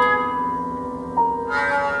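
Recorded contemporary chamber music playing: long held instrumental notes that shift pitch about a second in, with a struck note entering about a second and a half in.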